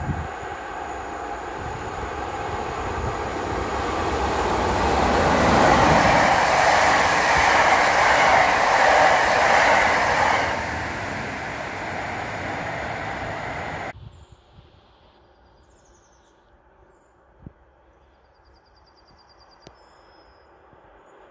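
EP07 electric locomotive hauling a passenger train passing at speed: a steady running rumble with wheel-on-rail noise that swells to a peak as it goes by and then fades away. About two-thirds of the way through it cuts off abruptly to quiet, with faint high chirps and a couple of short clicks.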